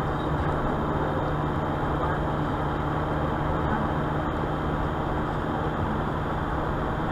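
Steady road noise inside a car cabin at highway speed of about 90 km/h: tyre roar and engine hum, even throughout.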